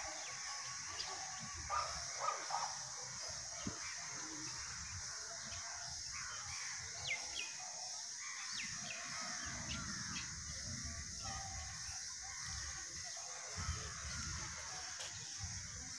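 Faint cawing of a large flock of crows flying overhead, with a few louder calls about two seconds in, over a steady hiss.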